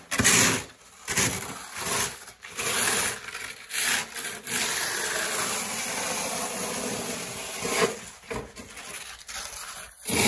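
Plastic snow shovel blades scraping over a concrete pad, pushing wet, heavy snow that is stuck fast to the concrete. There are several short scrapes, then one long scrape from about four to eight seconds in, then a few more short strokes.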